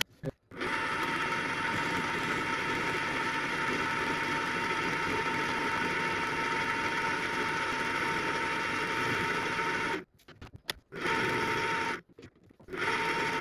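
Small benchtop metal lathe running with its chuck spinning while a cutter trims the leftover end off a small screw: a steady whine with several held tones. It cuts off about ten seconds in, runs again for about a second, then stops.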